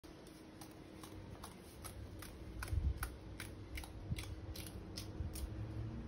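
A regular run of crisp snaps, about two or three a second, as green chili peppers have their stems snapped off by hand.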